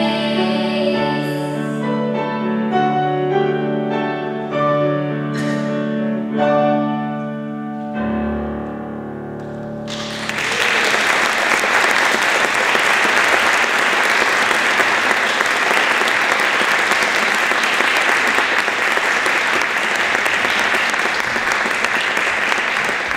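Children's choir holding its last note, which ends about a second in, while a piano plays out the closing bars of the song. About ten seconds in, audience applause starts and continues steadily.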